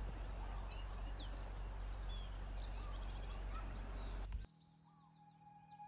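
Outdoor ambience of scattered short bird chirps and whistles over a steady background hiss and low rumble. It cuts off abruptly about four and a half seconds in, leaving near silence with faint music tones.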